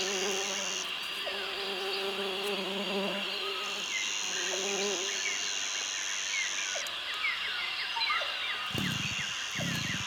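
Rainforest ambience: a dense, steady chorus of insects, with a shrill high insect buzz that cuts in and out, and many short bird chirps. A low buzzing hum wavers through the first half. About nine seconds in, low rhythmic pulses begin, about one a second.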